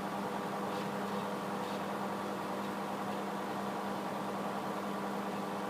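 Microwave oven running, a steady even hum.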